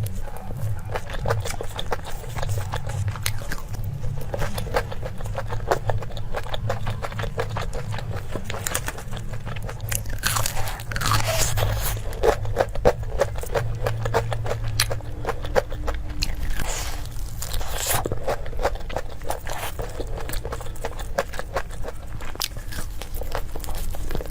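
Close-miked eating: a person biting, crunching and chewing food in a rapid run of small crisp clicks, with two longer, louder noisy stretches about ten and seventeen seconds in.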